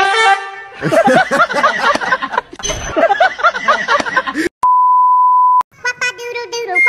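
A loud, held, horn-like note, then a few seconds of warbling singing, cut off by a steady 1 kHz test-tone beep lasting about a second. Near the end a new steady pitched tone starts.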